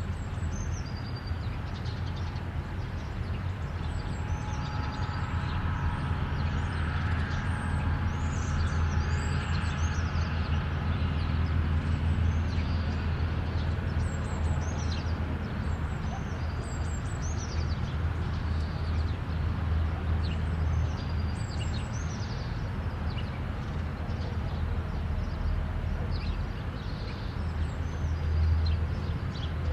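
Highway traffic ambience: a steady low rumble of passing vehicles, with small birds chirping over it, the chirps thickest in the first two-thirds.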